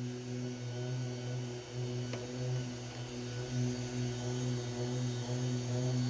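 Steady low machine or electrical hum with overtones, and one faint click about two seconds in.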